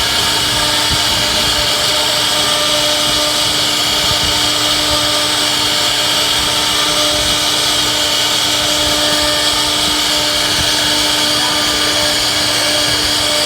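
CNC router spindle cutting a design into wood, running steadily with a constant hum under a bright hiss.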